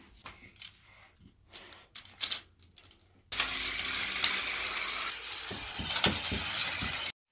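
Plastic toy train track pieces clicking and knocking as they are handled and fitted together. About three seconds in, a battery-powered toy train's small motor starts a steady whirring run with a faint hum.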